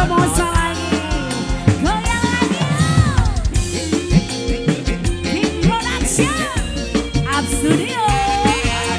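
Live dangdut band music: a drum kit with snare and rimshot strokes and a bass drum under a melody line that slides and bends in pitch.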